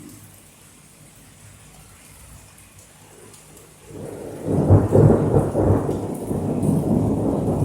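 Faint rain hiss, then about four seconds in a clap of thunder breaks into a loud low rumble that peaks about a second later and keeps rolling to the end.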